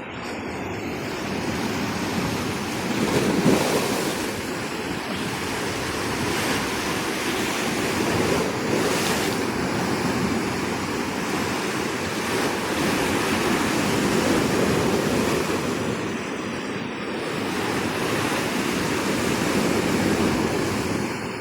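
Ocean surf: waves breaking and washing in as a continuous rush that swells and eases every few seconds, loudest about three and a half seconds in.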